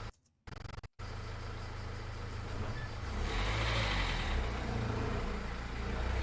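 Recorded vehicle engine sound effect, a heavy, low-pitched engine rumble that sounds more like a pickup truck than a car, growing louder about three seconds in. Playback cuts in and out briefly at the start.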